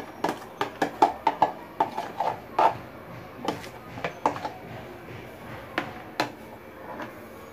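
Plastic bag crinkling and crackling in quick, sharp bursts as it is squeezed and shaken to empty soft cream into a steel bowl. The crackles thin out after about four seconds, with two last ones a little before six seconds and just after.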